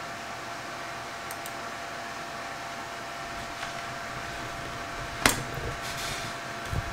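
Steady fan whir with a faint steady tone, from a Mac Pro 5,1's cooling fans, with one sharp click about five seconds in.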